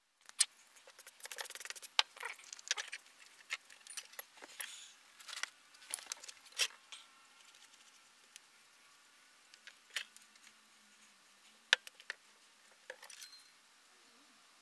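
Irregular clicks and light metallic clinks of small parts and hand tools being handled and set down on a workbench, busy in the first half and sparser later, with one sharp click near the end.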